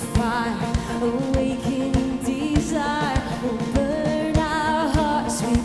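Live worship band playing: a female lead voice sings long notes with vibrato over electric guitar, bass and a steady kick-drum beat, with a cymbal crash near the end.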